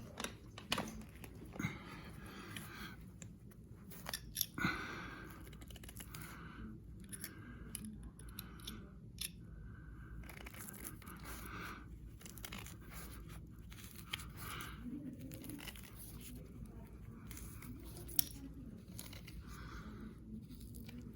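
Carpet edge being worked and tucked in with a chisel-type tucking tool: a run of short scraping, rasping strokes of the tool and carpet fibres, roughly one a second, with a few light knocks.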